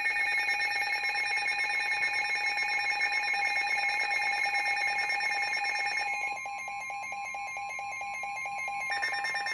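Emergency alert attention tone, a loud steady electronic alarm with a rapid pulse in it, sounding ahead of a Severe Thunderstorm Warning broadcast. It drops a little in level about six seconds in.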